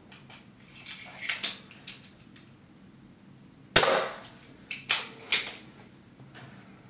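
A single airgun shot, a sharp crack about four seconds in and the loudest sound. A few light clicks and knocks come before it, and a quick cluster of metallic clicks follows about a second later.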